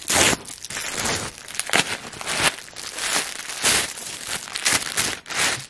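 Plastic bubble mailer torn open by hand, then thin plastic bags crinkling as they are pulled out, in a quick irregular run of crackly rustles, loudest at the first tear.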